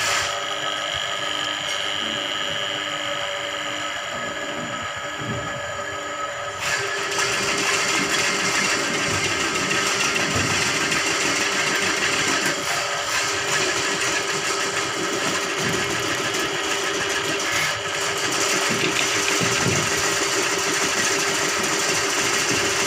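Electric drain-cleaning machine running steadily, its coiled steel spring cable spinning in a clogged drain pipe. About seven seconds in, the sound grows louder and fuller and then holds steady.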